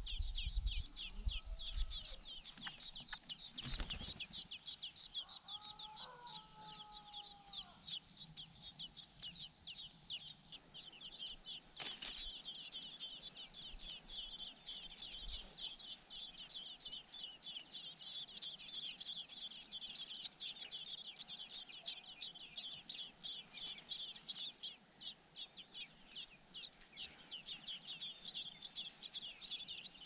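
Songbird nestlings begging at the nest, a rapid stream of high-pitched calls while a parent feeds them. A short, lower bird call comes about six seconds in.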